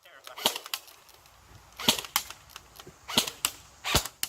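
Airsoft guns firing single shots, several sharp pops at uneven intervals, some close together, as a few shooters fire at once.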